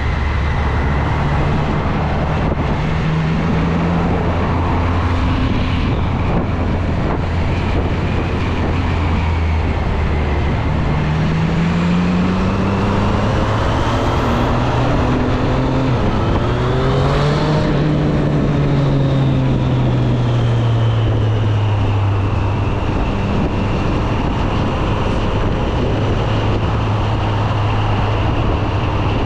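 Triumph Street Triple 765 RS inline-three engine running under way. Its pitch holds steady for about the first third, climbs to a peak about two-thirds of the way through, then falls back and settles.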